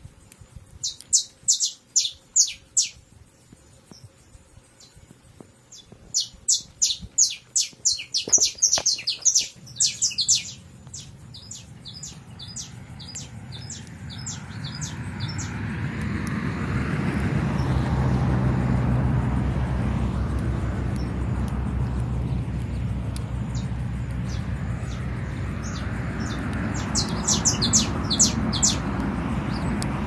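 Saffron finch (canário-da-terra) singing: three bursts of quick, sharp high chirps, about a second in, again from about six to ten seconds, and near the end. A low rumbling noise builds up from about the middle and runs under the last burst.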